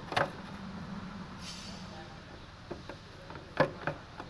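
Hard plastic parts of a hand push seeder knocking and clicking as the seed box is handled and lined up with its mounting holes: a sharp click at the start, then a few more near the end, the loudest about three and a half seconds in.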